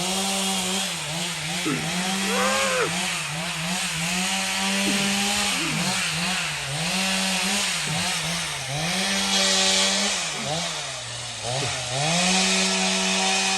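Two-stroke chainsaw running at high revs and cutting wood, its engine pitch dropping and recovering again and again as the chain bites, sagging lowest about eleven seconds in before climbing back to full speed near the end.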